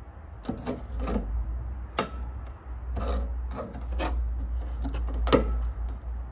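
Irregular metal scraping and clicking as a screwdriver works at the retaining clip under a wiper arm, with sharper clicks about two, four and five seconds in.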